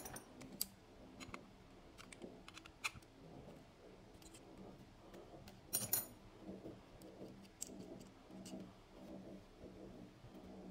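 Sparse light clicks and taps from the metal and plastic parts of a spinning reel being handled and taken apart by hand, with one louder click about six seconds in.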